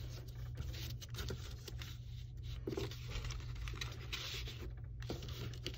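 Construction paper rustling and scraping in many short strokes as a paper strip is threaded over and under the slits of a paper loom and pushed into place. A steady low hum runs underneath.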